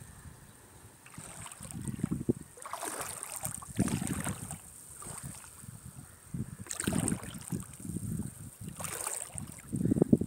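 Gusty wind buffeting the phone's microphone in irregular rumbles, with shallow seawater washing softly over sand; a few stronger hissing swells come and go.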